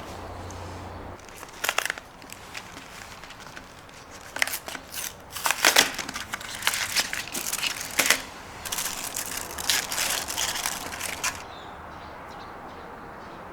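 Crinkling and tearing of a wrapper being opened and handled, in irregular crackly bursts that stop a couple of seconds before the end.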